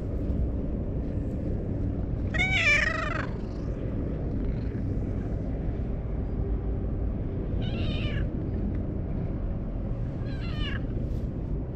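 Orange stray cat meowing three times: one longer, louder meow about two and a half seconds in, then two shorter ones later, over a steady low rumble.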